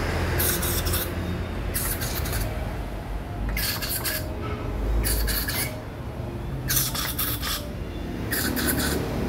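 Aerosol spray can squirted in six short hissing bursts, about one every second and a half, into the threaded head-bolt holes of an engine block to clean rust from the threads.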